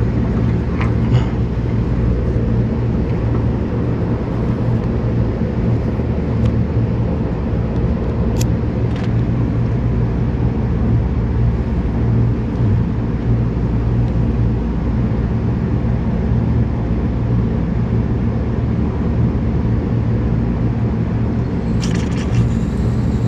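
Steady low mechanical hum of running machinery, even throughout, with a few faint clicks and a brief high squeak partway through.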